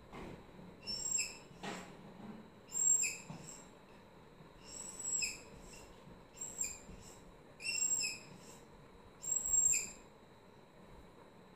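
Felt-tip marker squeaking on a whiteboard as lines are drawn: about six short, high-pitched squeals, one with each stroke, spaced a second or two apart.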